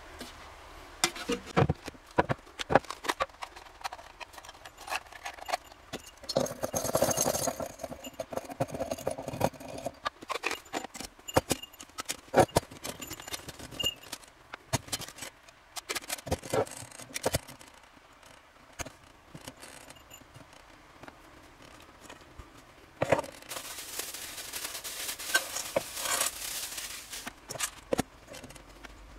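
Camp cooking gear being handled on a wooden crate: scattered knocks, clicks and clinks as a gas canister, a small folding stove and a nested metal cook pot are set down and fitted together. Two stretches of rustling from a cloth stuff sack, one early on and a longer one near the end.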